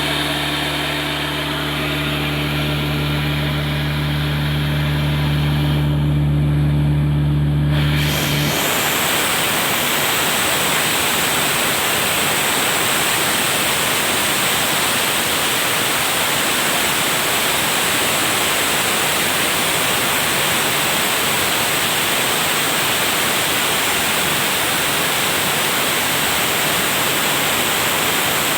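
A steady machine hum that stops about eight seconds in, followed by a loud, even rushing noise.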